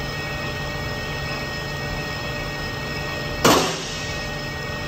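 Metal lathe running steadily with a constant whine while a boring bar cuts the inside of a metal bushing. About three and a half seconds in comes one sudden loud scrape that dies away quickly.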